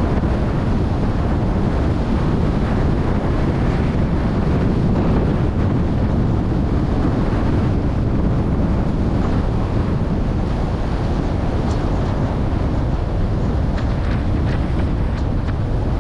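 Steady wind rumbling on the microphone mixed with road and tyre noise from a car driving along.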